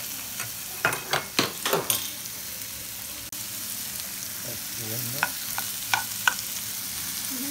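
Sliced onions frying and sizzling in a nonstick frying pan, stirred with a metal spoon that scrapes and knocks against the pan. There is a cluster of knocks about a second in and four quick taps near the end, over a steady sizzle.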